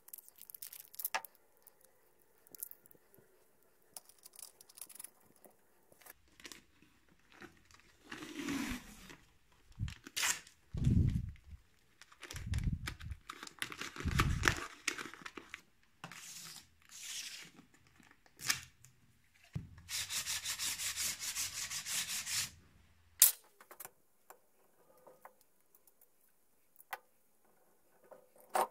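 Paper masking tape being handled, torn and rubbed down by hand, with crinkling of the taped paper. About twenty seconds in, a length of tape is pulled off the roll as a steady crackling rasp of a couple of seconds, ending in a sharp snap.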